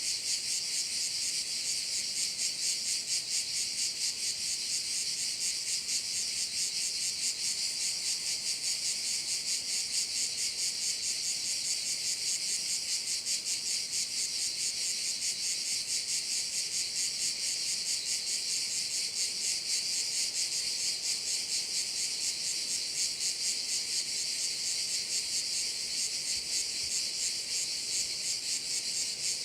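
Dense chorus of cicadas singing without a break: a loud, high, rapidly pulsing buzz that holds steady throughout.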